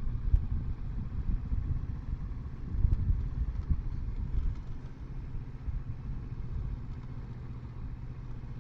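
Kawasaki Versys 650's parallel-twin engine running at low speed, with a steady low rumble that swells around three seconds in.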